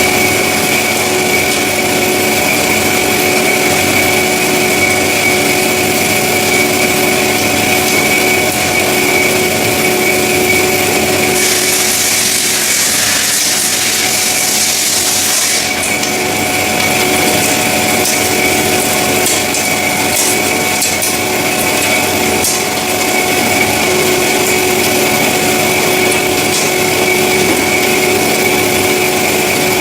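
CORMAK S-200R semi-automatic metal-cutting band saw running with a steady whine. About eleven seconds in, a loud hiss comes in for roughly four seconds while the whine fades, then the whine returns.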